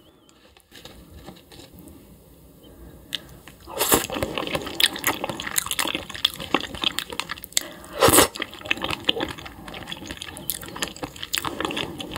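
Wet liquid sounds, a dense run of small splashes and clicks, starting about four seconds in after a quiet start and loudest about eight seconds in.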